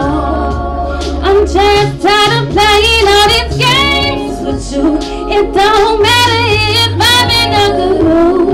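A woman singing live into a microphone with a band, moving through quick wordless runs and held notes with vibrato, over a steady bass line.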